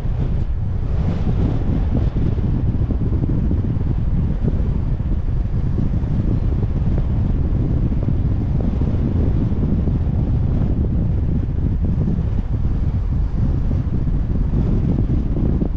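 Wind buffeting the microphone of a car-mounted GoPro while driving, a steady low rumble mixed with the moving car's road noise.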